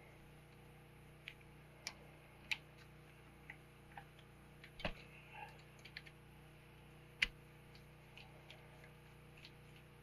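Irregular light clicks and taps of hand tools and parts being handled on a snowmobile engine while its power valves are refitted, with two louder knocks a little before five seconds in and about seven seconds in.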